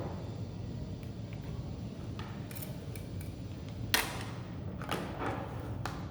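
Scattered sharp clicks and knocks of washing-machine wiring connectors and parts being handled and plugged in, the loudest about four seconds in, over a low steady hum.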